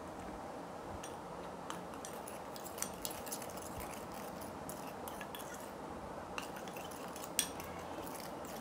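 Metal spoon stirring a wet fuller's earth paste in a glass bowl: faint scraping with scattered clinks of the spoon against the glass, a sharper one about three seconds in and another about seven seconds in.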